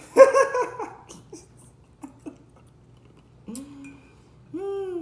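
A man laughing: a short burst of quick chuckles about a quarter of a second in, then two brief hummed voice sounds near the end.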